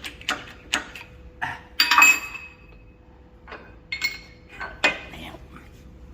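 Metal clinking: a quick run of sharp clicks, then a louder ringing clank about two seconds in, followed by a few more scattered clinks.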